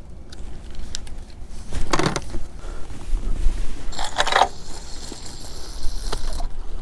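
Close rustling and scraping from gloved hands handling fishing line, rod and reel, with two louder scrapes about two and four seconds in, over a low rumble.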